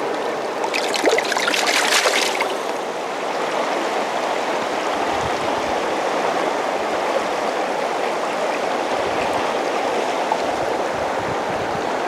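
Fast-flowing river current rushing steadily over riffles. About a second in there is a brief spell of splashing in the shallows as a brown trout is released by hand and swims off.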